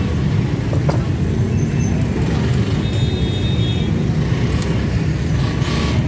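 Steady low rumble of street traffic, with a few light clinks.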